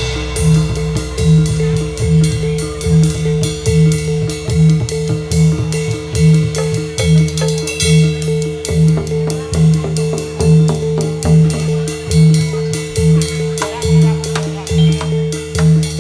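Live jathilan accompaniment music: drums beating a steady pulse under a repeating low note, with one high note held throughout.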